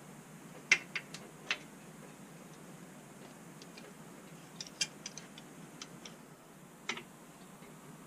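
Scattered sharp metal clinks and taps of hand tools against the main caps and bolts of a 6.4 Hemi engine block. The loudest comes just under a second in, a quick cluster follows about five seconds in, and another comes near the end.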